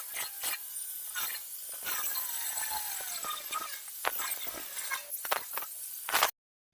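Steel saw blade being cut to shape for a meat cleaver: a high hiss with scattered sharp clicks and a squeal, and a whine falling in pitch about two to three seconds in. The sound cuts off abruptly near the end.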